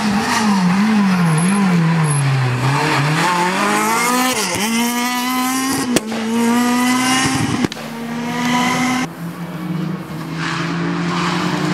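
Rally car engine running hard, its pitch dipping and climbing in steps as the driver lifts off and changes gear, with a single sharp crack about six seconds in. About nine seconds in the sound cuts to a quieter, steadier engine note.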